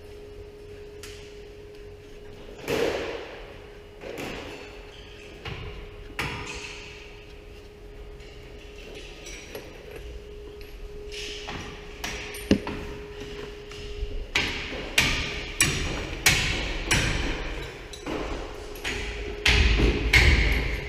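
Metal tools and car parts knocking and clanking as they are handled, a few separate knocks with short pings at first, then a quick run of louder knocks near the end, over a faint steady hum.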